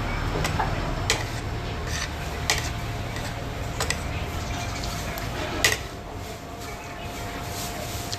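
Cutlery clinking against a dish: five short, sharp clinks spread over several seconds, over a steady background hum.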